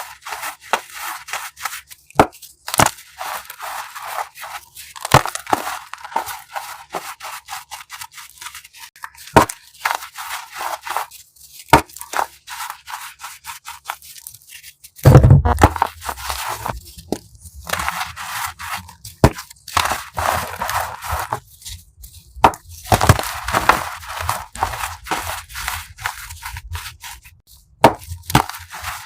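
Crunchy chalk crushed by hand: dense runs of crisp crackles and snaps with short gaps between squeezes. A heavy thump about halfway through is the loudest sound.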